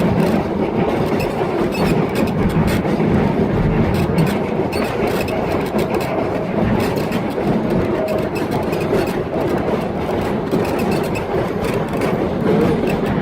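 Train running steadily, a continuous rumble of wheels on the track with rapid rattling and clicking throughout.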